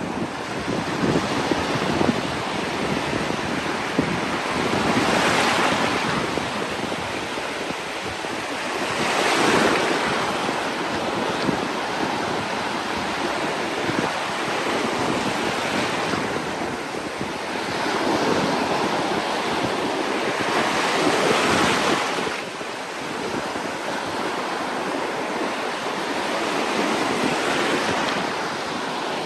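Ocean surf on a beach: a steady wash of water, with waves breaking and swelling louder every few seconds.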